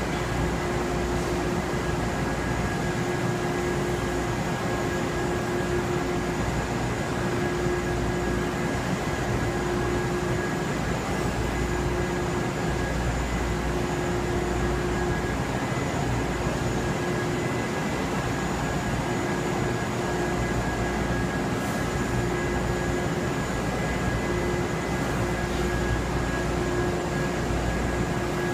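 Steady running noise of industrial laundry machinery: towel folder, roller conveyors and a drum fan, a low rumble with a constant high tone and a mid-pitched hum that cuts in and out every few seconds.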